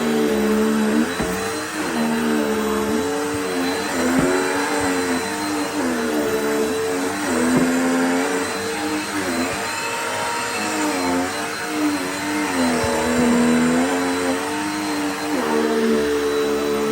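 Dirt Devil Power Max Pet upright vacuum cleaner running, with a steady rush of air. Its motor hum sags and recovers in pitch every second or two as the load changes.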